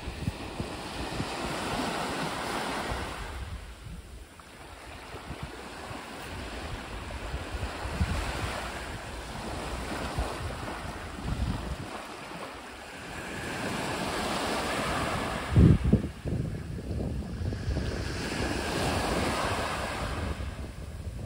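Small sea waves breaking and washing up a pebbly shore, rising and falling in surges every few seconds. Wind buffets the microphone with a low rumble, strongest in a thump about three-quarters of the way through.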